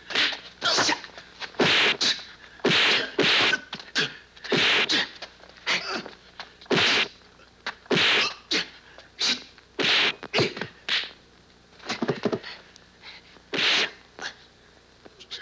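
Kung fu film fight sound effects: a rapid, irregular string of punch and kick thwacks and swishing whooshes, about one or two a second, with a brief lull about twelve seconds in.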